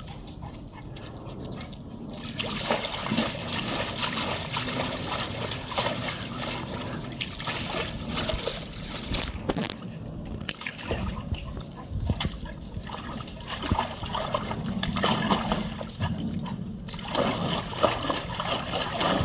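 Labrador retriever pawing at swimming-pool water, splashing and sloshing it in irregular bouts that begin about two seconds in.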